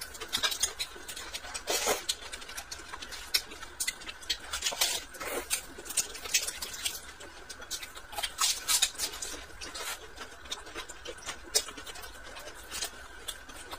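Close-up chewing and lip-smacking while eating a steamed bun: irregular wet mouth clicks and smacks, several a second, with short pauses between bites.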